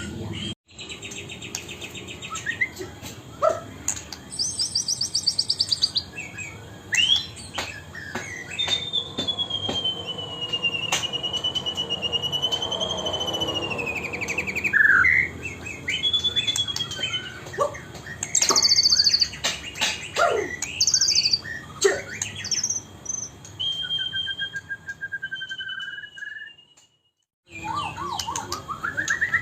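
White-rumped shama singing in full song: a varied stream of whistles, fast trills and sharp chattering notes, with a long wavering whistle in the middle. The sound cuts out completely twice, just after the start and near the end.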